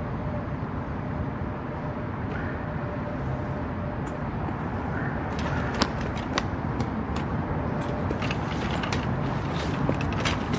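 Steady low outdoor background rumble, with scattered light clicks and taps in the second half.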